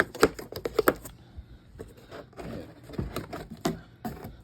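A box being handled and its lid worked open: a quick run of clicks and knocks in the first second, then scattered knocks and light rubbing.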